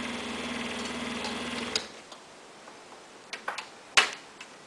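Excalibur scroll saw running with a steady hum, then shut off just under two seconds in as the cut is finished. After it, a few light clicks and one sharp knock about four seconds in.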